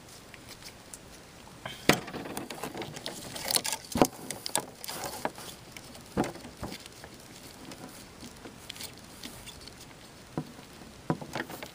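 Small irregular clicks and taps of fingers pressing a rubber seal into the plastic ink ports of an inkjet printer's print head.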